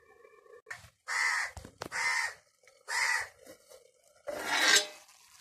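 A crow cawing three times, about a second apart. Near the end comes a brief, louder scraping noise.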